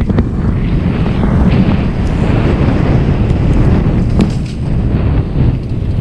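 Loud rumbling wind noise buffeting the microphone, with a few sharp knocks scattered through it.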